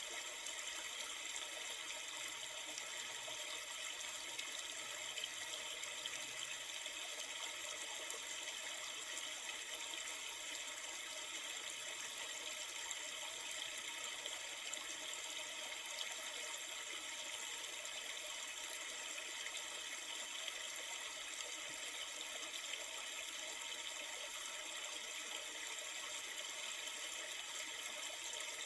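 A river flowing: a steady, even rush of water that holds the same level throughout.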